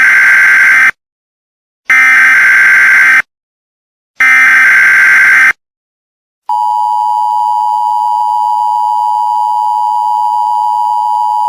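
Emergency Alert System tones, loud: three bursts of SAME header data, a harsh buzzing warble each over a second long with short gaps between them, then about six seconds in the steady two-tone EAS attention signal (853 and 960 Hz) begins and holds.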